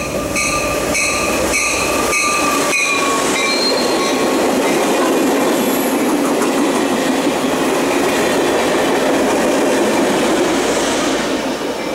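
Freight car wheels clicking over rail joints about twice a second, with a thin wheel squeal, for the first few seconds. Then the loud, steady rush of a passenger train passing close: Amtrak's North Carolina Piedmont set of passenger cars with a GMD F59PH diesel locomotive. It eases off near the end.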